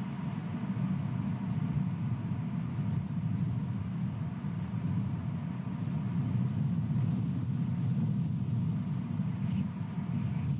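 Steady low rumbling noise on an outdoor nest-camera microphone, with a few faint high chirps near the end.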